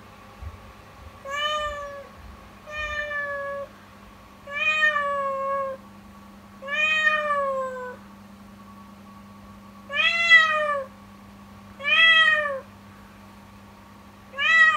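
A kitten meowing over and over, seven long, drawn-out, sad-sounding cries about two seconds apart. Each one rises and then falls in pitch.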